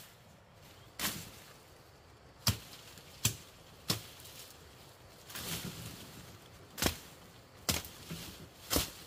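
A blade chopping bamboo: about eight sharp, irregularly spaced strikes, with a short stretch of noise midway between them.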